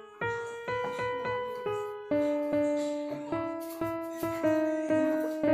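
Background piano music: a slow melody of single struck notes, each fading away, about two a second.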